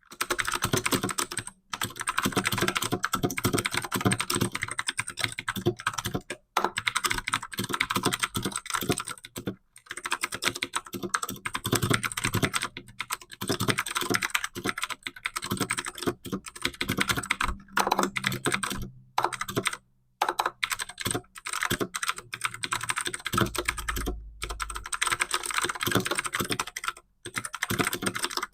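Fast continuous typing on a computer keyboard, a dense run of keystrokes at about 75 to 90 words a minute, broken by several brief pauses.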